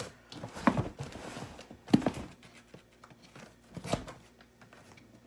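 Metal serrated edge of a ruler scraping and sawing at packing tape on a cardboard shipping box, with three sharp knocks against the cardboard.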